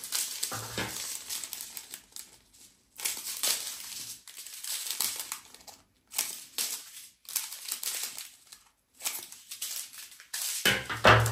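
Strips of small plastic diamond-painting drill bags crinkling as they are handled and laid out, in irregular bursts with short pauses between them.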